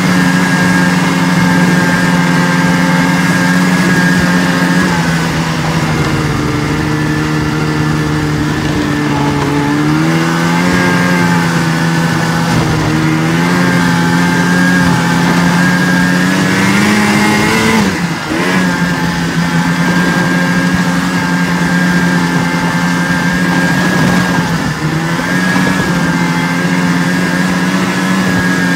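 Snowmobile engine running under way at trail speed, its pitch dipping about five seconds in, climbing gradually to a peak, then dropping sharply about eighteen seconds in before holding steady again.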